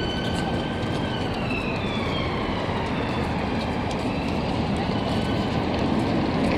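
An emergency vehicle's siren wailing, slowly rising and falling in pitch, over steady city traffic noise.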